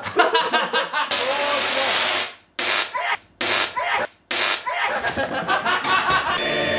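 Tesla coil spark discharge, a loud steady hissing crackle with voices over it. It starts about a second in and breaks off abruptly three times for a moment.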